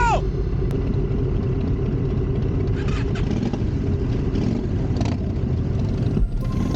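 A vehicle on the move: steady engine and road or wind noise, a continuous low rumble.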